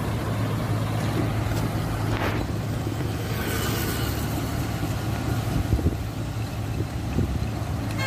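Engine of a truck-mounted microsurfacing machine running steadily as it lays slurry, a continuous low drone.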